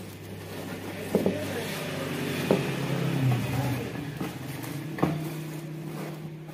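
A motor vehicle engine runs nearby, its hum rising a little in pitch and getting louder toward the middle, then fading. Three sharp knocks sound over it as a wooden rolling pin works the puffed rice and jaggery sheet on the table.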